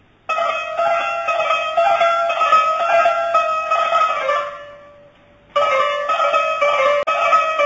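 Music on a plucked string instrument playing a melody. The phrase starts just after the beginning, fades out about four and a half seconds in, and a new phrase begins about a second later.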